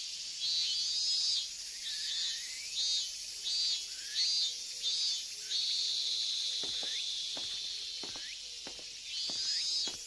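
A cicada singing in repeated short, high-pitched phrases that each fall away at the end, then one long held note, then a rising phrase near the end. Soft footsteps join in the second half.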